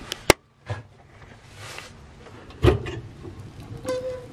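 Small Cubic Mini wood stove's metal door being opened: sharp clicks near the start, a heavy clunk a little past halfway, then a short squeak near the end.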